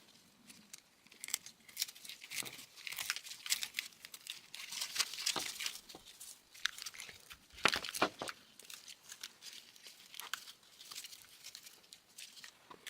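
A wiring harness being handled close to the microphone: its plastic loom and tape wrapping crinkle and crackle, with scattered sharp crackles and a few louder bursts.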